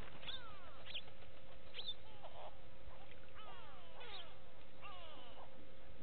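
Grey go-away birds calling: a string of overlapping calls that fall in pitch, one after another every half second or so.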